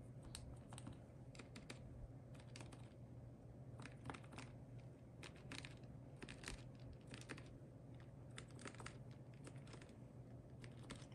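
Faint, irregular clusters of light plastic clicks from HHKB keyboard parts being handled and pressed during assembly, like keys being pushed down.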